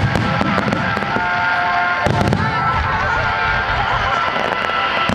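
Starmine fireworks barrage: many shells bursting in rapid succession, a dense run of bangs and crackling with no break.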